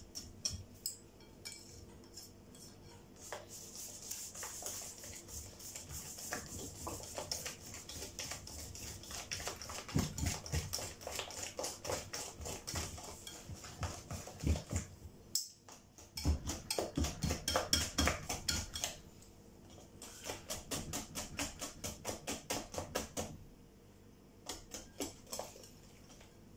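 Metal balloon whisk beating thick crêpe batter in a glass bowl: a fast run of clicks and scrapes as the wires strike the bowl. It stops briefly about halfway and goes quieter near the end.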